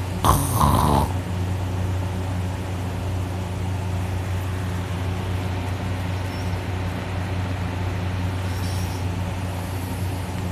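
A person snoring through a held-open mouth with the nose pinched shut: one loud snore about a second long at the start, which the sleeper takes for the soft palate vibrating hard. After it, a steady low hum runs on.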